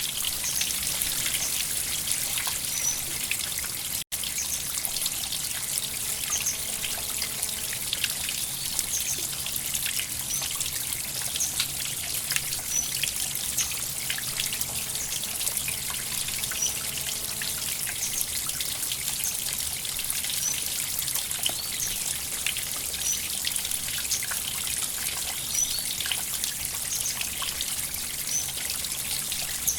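River water flowing and trickling steadily: a constant rushing hiss full of small splashes. There is a momentary dropout about four seconds in.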